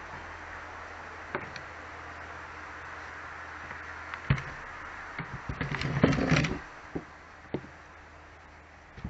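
Wooden deck boards being moved and knocking against each other: a few separate knocks, with a short clatter of several quick knocks in the middle, over a steady hiss.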